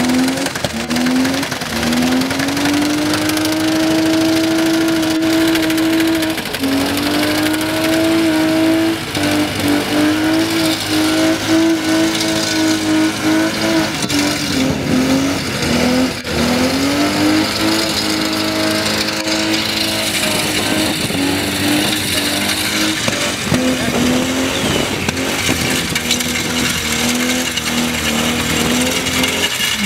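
Mercedes-Benz W124 coupe engine held at high revs in a burnout, its pitch wavering up and down as the throttle is worked. Under it the spinning rear tyre hisses and squeals on the concrete.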